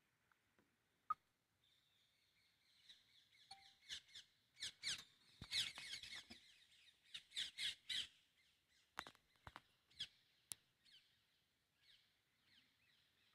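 Faint bird chirping in the forest, broken by a run of loud crackles and clicks from about four to eight seconds in, with a few single clicks before and after: handling noise from the phone as it is jostled.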